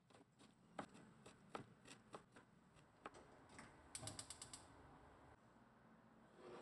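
Faint chopping of a cleaver mincing fresh ginger on a plastic cutting board: irregular knife strikes, a few a second, for the first three to four seconds. About four seconds in comes a quick even rattle of ticks, then quiet.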